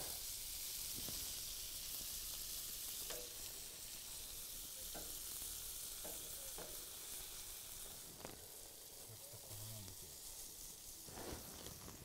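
Lamb chops sizzling as they sear on a hot griddle plate over a campfire, a steady faint hiss with a few small ticks.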